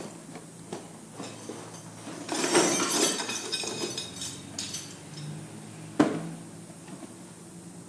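Scattered clinks and knocks of hard objects being handled, with a rustling, clattering stretch about two and a half seconds in and one sharp click about six seconds in.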